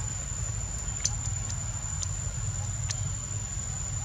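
Outdoor ambience: a steady low rumble under a constant high-pitched insect whine, with about five short sharp clicks between one and three seconds in, the loudest about a second in.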